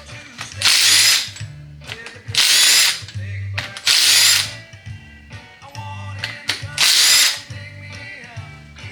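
Powered ratchet spinning out the cylinder head bolts of an Oldsmobile 371 V8 in four short bursts, each under a second, with background music underneath.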